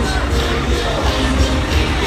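Loud music with a heavy, pulsing bass beat.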